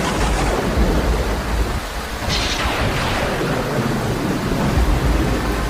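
Thunderstorm: steady rain with low rumbles of thunder, one near the start and another near the end.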